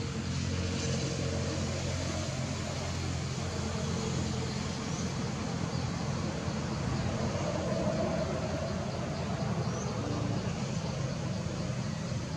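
Steady motor-vehicle noise: a low, even engine hum under a constant hiss.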